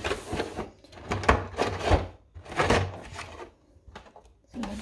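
A cardboard cake box being opened by hand: its flaps and lid rustle and scrape in several short bursts.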